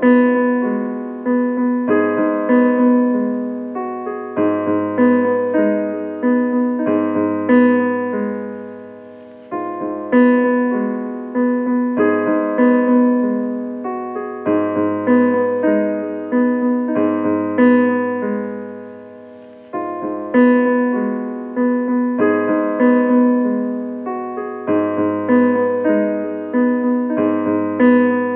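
Solo piano playing an instrumental intro: chords struck sharply and left to ring and fade, in a phrase that repeats about every seven to eight seconds.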